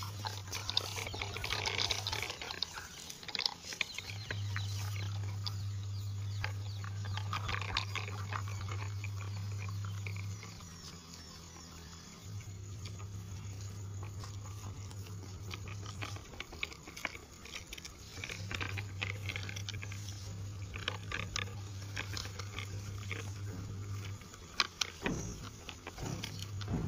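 Toy tractor and loaded trolley rolling over gritty dirt, its small wheels crackling and clicking on grit and pebbles. Under this runs a steady low hum that comes and goes in long stretches of several seconds, with a sharper knock near the end.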